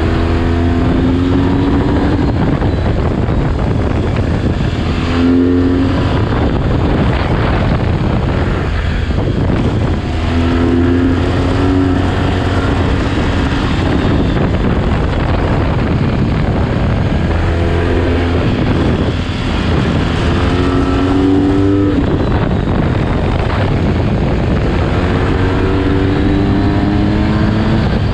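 A vehicle's engine running under load with a steady low rumble and rough road noise, its pitch climbing several times as it accelerates and then dropping back.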